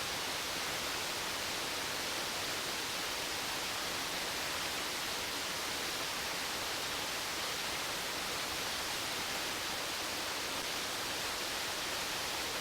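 Steady rushing of falling water from a waterfall, an even hiss that does not change.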